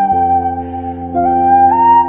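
Background music: a slow melody of long held notes over chords that change about once a second.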